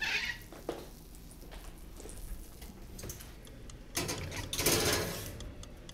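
Cast iron skillet handled metal on metal: a short scrape as it is lifted off the stove grate, then, about four seconds in, a longer scrape and rattle as it is slid onto the oven's wire rack.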